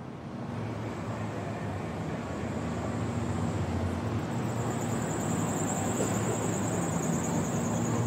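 Roadside ambience with a motor vehicle engine running steadily at idle, growing gradually louder, and a steady high whine joining about halfway through.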